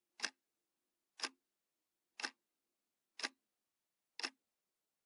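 Faint clock-like ticking, one sharp tick each second, five ticks in all.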